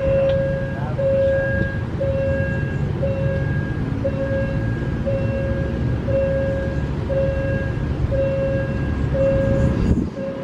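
Railway level-crossing warning bell ringing a repeated electronic ding, a little over once a second, as the crossing is closed for an oncoming train, over a steady low rumble.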